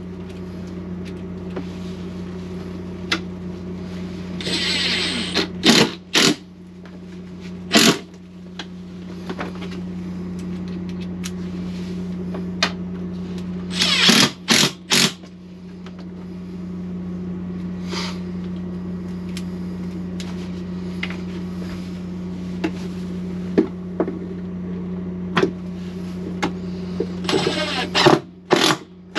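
Cordless drill driving stainless-steel screws through a composting toilet's base into the floor, in four short bursts with clicks between them, over a steady low hum.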